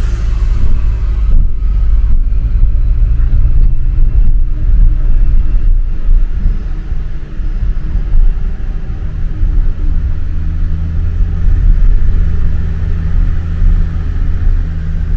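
Steady low rumble of a car's engine and tyres heard from inside the cabin as it drives slowly onto a roll-on/roll-off ferry's vehicle deck; a low hum grows stronger about halfway through.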